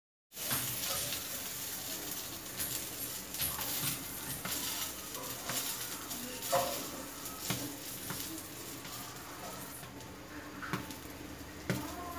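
An omelette sizzling and crackling in oil on a cast-iron griddle, starting suddenly about half a second in. A slotted metal spatula scrapes and taps the pan a few times as the omelette is pushed and turned.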